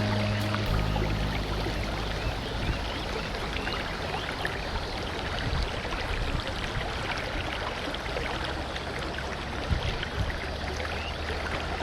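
River water flowing and rushing over stones, a steady wash of noise.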